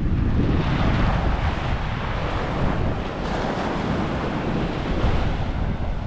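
Surf breaking and washing up a beach, with wind rumbling on the microphone.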